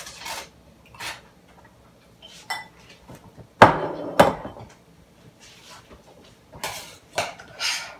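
Kitchen utensils working in a metal saucepan: a spatula scraping diced potatoes out of a glass bowl and knocking against the pan, two sharp clanks about halfway through, then a spoon scraping and stirring in the pan near the end.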